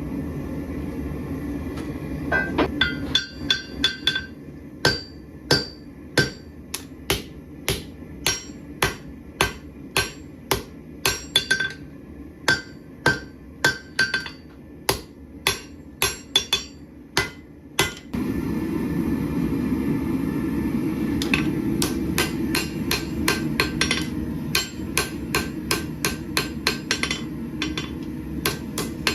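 Hand-forging a steel knife blade on an anvil: a hammer strikes the hot steel at about two blows a second, each blow with a short metallic ring. A little past halfway a steady low noise comes in, and the hammering carries on over it.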